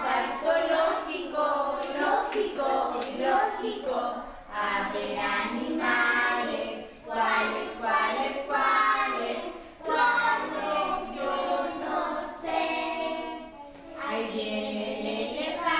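A group of young children singing a song together, in phrases with brief pauses between them.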